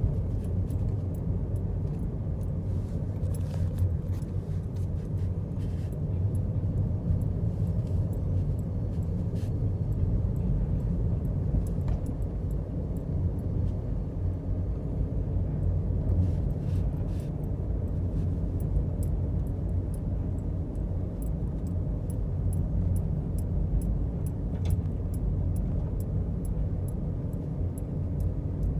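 Steady low rumble of a car driving, with faint scattered ticks.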